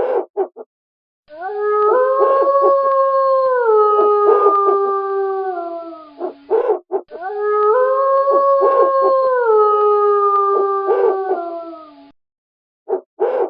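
Wolf howling: two long howls, each rising in pitch, holding and then sliding down over about five seconds, with short yips in between and over them.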